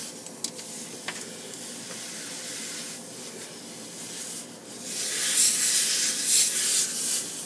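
Brazing torch flame hissing steadily while silver-soldering a copper refrigerant line on an air conditioning coil. The hiss swells louder from about five seconds in, with a couple of faint clicks near the start.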